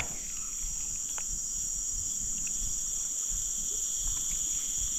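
A steady, high-pitched chorus of insects, an unbroken drone with no pauses.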